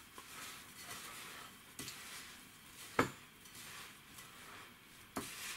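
Gloved hand rubbing crumbly semolina mixed with oil and ghee in a glass bowl: a soft gritty rustling. A sharp knock comes about three seconds in and a lighter one near the end.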